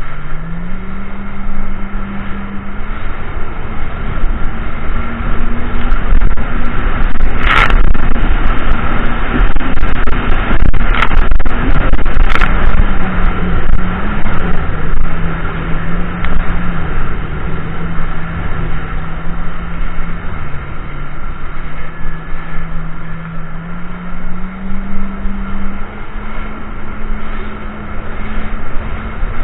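Jet ski engine running under way over wind and water noise. The engine note climbs about a second in, drops about twelve seconds in, and rises again near the end. Three sharp slaps come between about seven and twelve seconds in.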